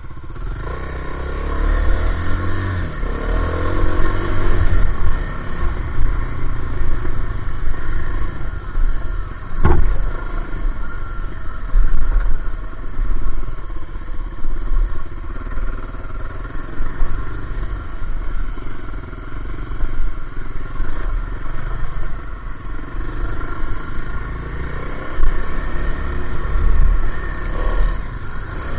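Dirt bike engine running under changing throttle as it is ridden over a rough dirt trail, the engine note rising and falling again and again. A sharp knock about ten seconds in.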